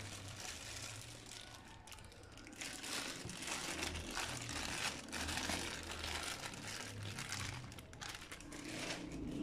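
Clear plastic bag crinkling as grated mozzarella is shaken out of it, with rustling and crackling that grows busier a few seconds in.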